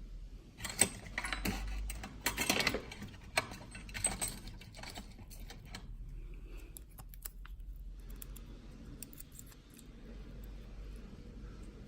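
Small metal parts of a Yale rim cylinder lock clicking and clinking as it is handled during disassembly. A busy run of clinks comes in the first four seconds or so, then scattered faint clicks.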